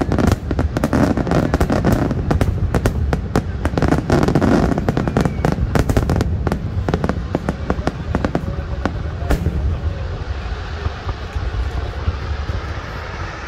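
Aerial fireworks display: a rapid barrage of bangs and pops from bursting shells over a steady low rumble, dense for the first several seconds and then thinning to scattered pops as the loudness falls away.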